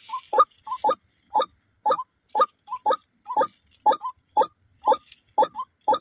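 White-breasted waterhen calling: a steady run of hoarse 'kwak' calls, about two a second, each followed by a shorter note.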